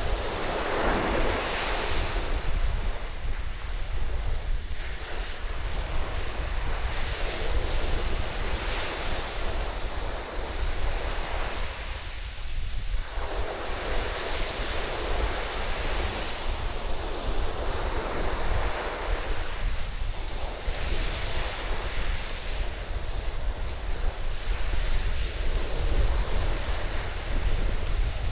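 Waves breaking and washing up a sandy beach, swelling and fading every few seconds, with strong wind buffeting the microphone as a steady low rumble.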